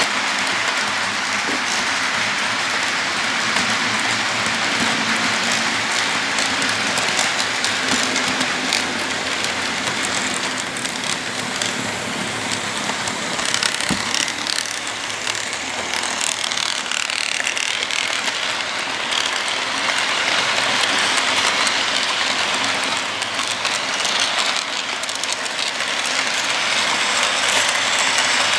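Model freight train rolling past on curved track: a steady rattle of the cars with wheels clicking rapidly over the rail joints.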